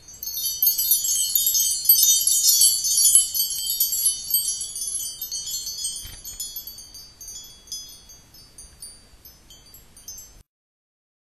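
High tinkling chimes: a dense shimmer of many overlapping ringing tones that thins out to scattered single pings and fades, then cuts off abruptly about ten seconds in.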